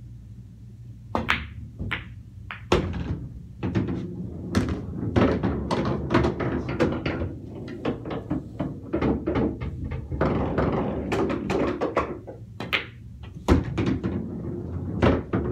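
Pool balls knocking and clacking in an irregular run of sharp thunks: cue strikes, balls hitting each other and the cushions, and balls dropping into the pockets of a bar-box table.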